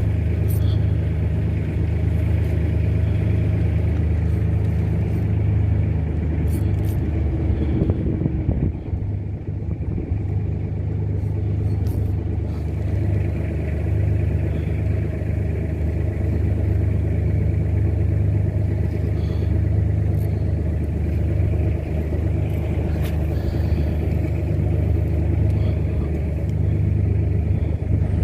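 Fishing boat's engine running steadily, a loud low drone.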